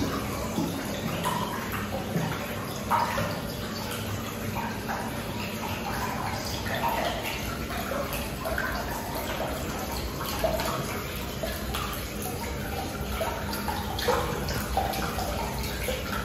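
Flush water running down a stainless steel slab urinal and splashing into its floor channel: a steady rush of water with scattered splashes.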